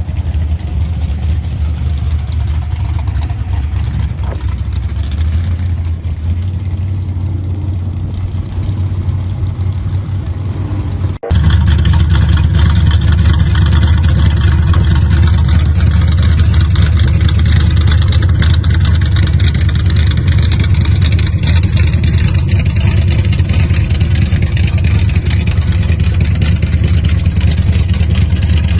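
Gasser hot rod engine running steadily with a low rumble. About eleven seconds in, the sound cuts off abruptly and is replaced by a louder, closer engine that runs on steadily.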